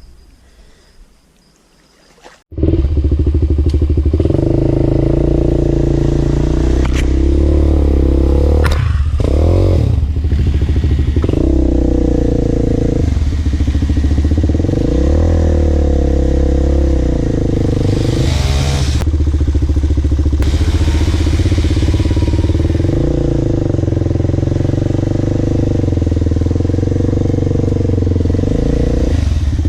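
Quiet for the first couple of seconds, then an off-road bike's engine comes in suddenly and runs loudly under way. Its pitch rises and falls as the throttle is worked, with a few short dips.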